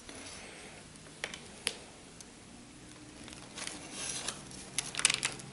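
Cleaver blade pressing down through a slab of firm maple toffee on parchment paper: a few faint sharp clicks, then a crinkling rustle of the parchment in the last couple of seconds.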